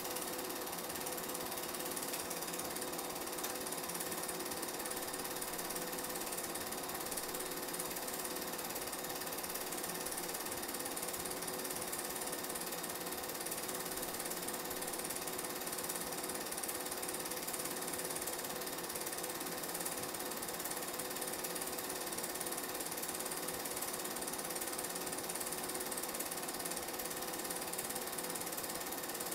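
Film projector running steadily: a constant mechanical whir with a few faint steady tones, the only sound on a silent game film transfer.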